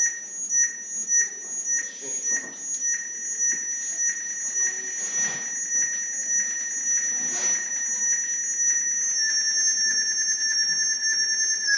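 Live-coded SuperCollider electronic music: high, piercing alarm-like tones pulsing nearly twice a second, merging into a steady held chord of high tones whose pitches step down slightly near the end.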